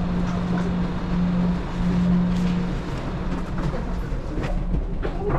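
A steady low mechanical hum over a rumble. The hum is strong for the first half and then fades, and there are a few soft footsteps and light knocks.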